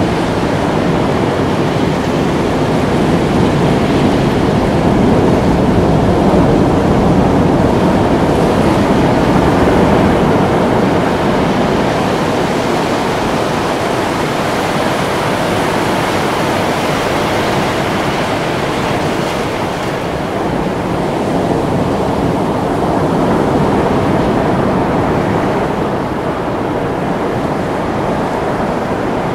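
Ocean surf: a steady rush of breaking waves that swells and eases, louder in the first third and again a little before the end.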